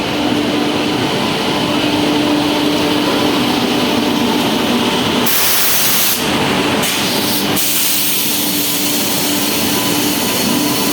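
Loud, steady rushing noise of a train in motion, with a constant hum and bands of high hiss that come and go from about five seconds in.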